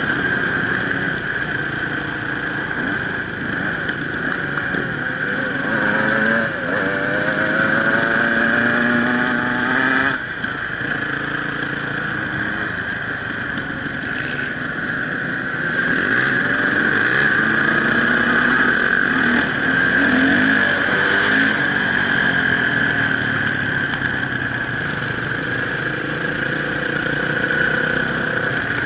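Enduro motorcycle engine running off-road, revving up and easing off. It climbs in pitch from about six seconds in and drops off sharply around ten seconds, then picks up again in the second half.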